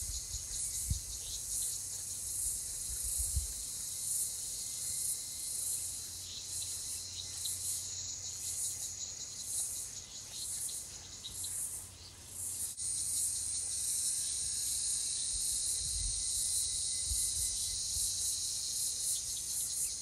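Insect chorus: a high pulsing trill at about two pulses a second that turns into a steady high buzz a little past halfway, with a few low rumbles underneath.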